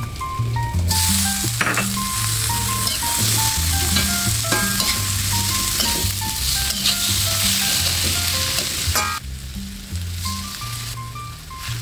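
Food sizzling in hot oil in a pan, with a few clicks of a utensil stirring. The sizzle starts about a second in and cuts off suddenly near the end.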